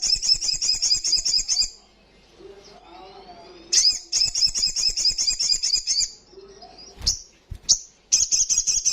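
Olive-backed sunbird singing: three bursts of rapid, high-pitched, trilling notes, each about two seconds long. There are two short knocks between the second and third bursts.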